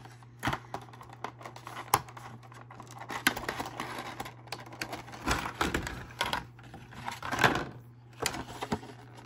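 Thin clear plastic blister packaging being handled: irregular clicks, taps and crinkles as the trays and parts are moved, a little denser about seven and a half seconds in.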